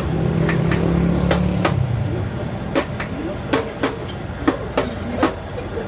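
Irregular sharp taps or knocks, about a dozen, over a low steady motor hum that fades out about two seconds in.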